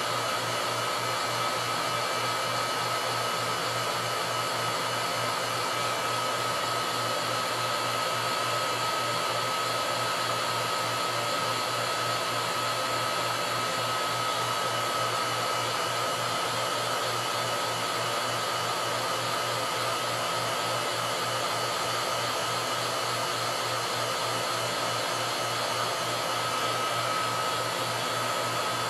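Vacuum pump running steadily: an even hiss with a thin steady whine and a fast low pulsing underneath.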